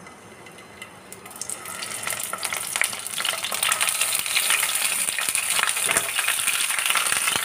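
Hot mustard oil sizzling and crackling in a non-stick kadai as whole peeled pointed gourds (potol) are laid in to fry. It starts almost quiet, then the sizzle sets in about a second in and grows steadily louder as more gourds go into the oil.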